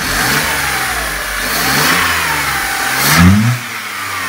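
Freshly rebuilt Seat Ibiza 1.2 12V (AZQ/BME) three-cylinder petrol engine revved up and down a few times with the bonnet open. The highest and loudest rev comes about three seconds in, then it drops back toward idle.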